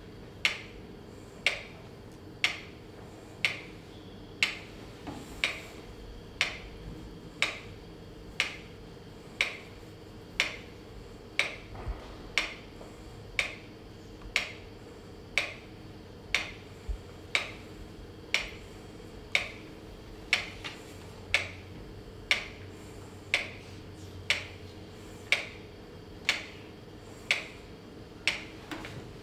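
A sharp tick repeating at a very even pace of about once a second, like a clock or metronome, over a steady low background hum.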